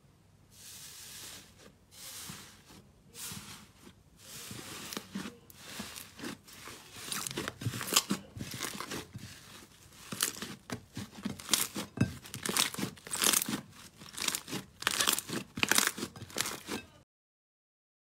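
Hands squeezing and kneading slime: repeated crackling, squishing pops that come thicker and louder in the second half, then cut off suddenly near the end.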